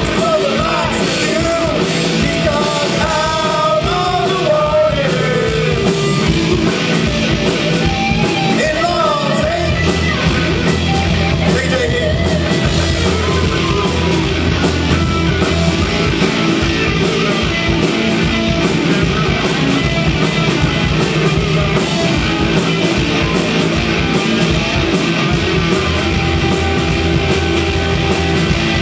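Live punk-rock band playing loudly: electric guitars, bass and drums, with a singer's voice over about the first twelve seconds before the instruments carry on alone.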